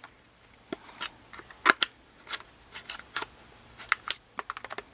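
Irregular plastic clicks and knocks as parts inside an LG front-load washing machine are worked by hand to free a piece that is caught. The loudest knock comes a little under two seconds in.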